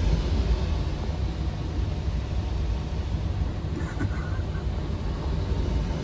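Steady low rumble with a fainter hiss above it, unchanging and without distinct knocks or tones.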